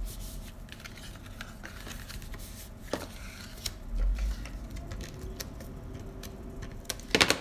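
Cardstock handled and pressed onto a paper treat box on a tabletop: scattered soft paper rustles and small taps, a low bump about four seconds in, and a quick run of louder sharp clicks near the end.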